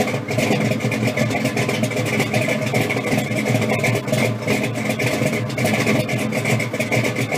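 A car engine running steadily with a rapid, even pulse. It cuts in suddenly at the start.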